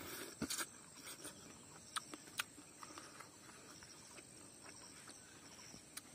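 Steady high trill of crickets or other insects, with scattered soft clicks and smacks of someone eating rice and smoked chicken by hand and chewing, most of them in the first two or three seconds.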